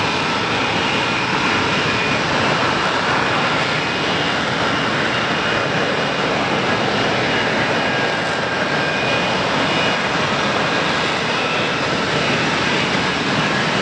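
F-35B fighter hovering, its jet engine and lift fan giving a loud, steady roar with faint whining tones over it.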